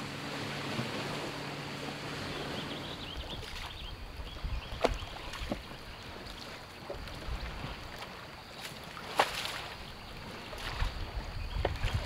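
A distant motorboat's engine hums steadily for the first three seconds or so. After that, over water and light wind noise, a few sharp knocks and clicks come at irregular intervals.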